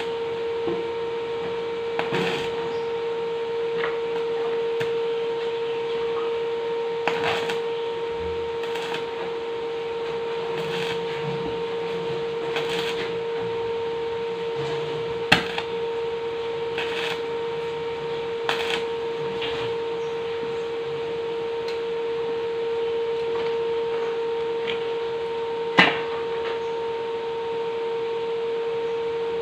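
Electric arc welding on hollow steel tube: a steady hiss over a constant hum from the welding machine, with a few sharp metallic knocks, the loudest about halfway through and again near the end.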